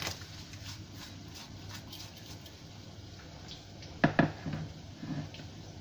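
Crushed garlic cloves dropped into water in an aluminium wok, a sharp splash at the start followed by small drips and ticks. About four seconds in come two sharp knocks and a few weaker ones.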